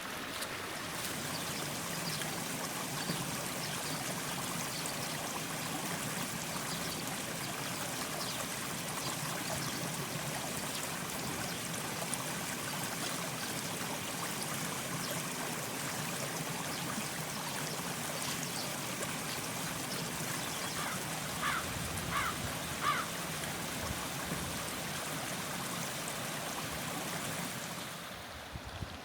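A stream of water flowing steadily, with three short, sharp sounds about three-quarters of the way through; the sound drops off just before the end.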